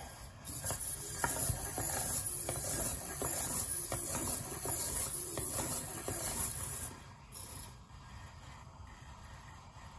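Tomy i-SOBOT toy humanoid robot walking on command: its servo motors whir with a high hiss while its steps make a run of small clicks. It goes quieter about seven seconds in.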